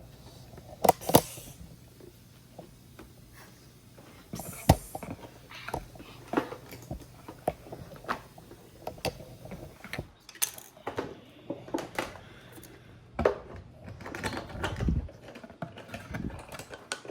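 Irregular clicks, taps and rustles of a plastic toy dinosaur figure and its packaging being handled as it is freed from its ties, with a few sharper knocks, the loudest about a second in and near five seconds in.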